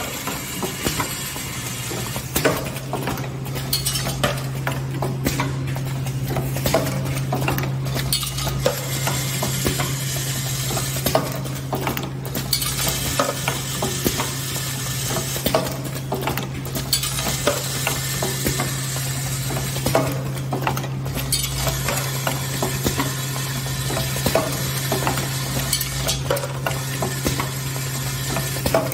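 Automatic O-ring assembly machine running: a steady low hum under continual small clicks and clinks of metal parts and mechanisms, with a hiss that cuts out briefly every few seconds.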